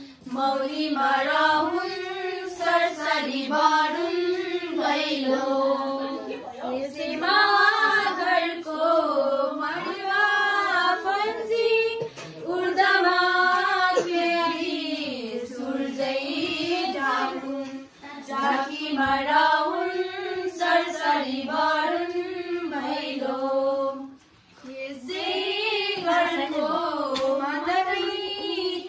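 A group of women and girls singing a Bhaileni, the Nepali Tihar festival song, together in one melody with no instruments. There are two short breaks between lines.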